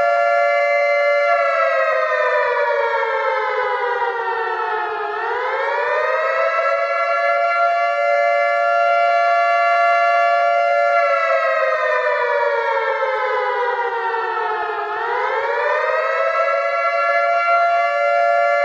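Civil-defence air-raid warning siren sounding for a mock drill. It is a loud, steady tone that twice slides slowly down in pitch over about four seconds, then swoops quickly back up and holds again.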